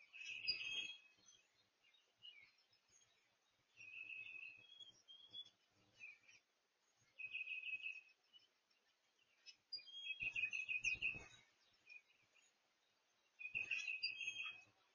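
A songbird singing a short phrase of rapidly repeated notes, five times, about every three seconds.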